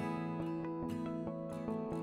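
Background music: gently plucked and strummed acoustic guitar.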